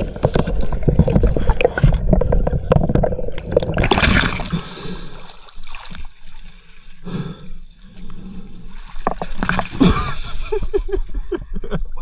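Water gurgling and sloshing, first under the surface, then with splashes as a diver surfaces and pushes through shallow, weedy pond water. It is busiest in the first few seconds, drops off around the middle, then picks up again.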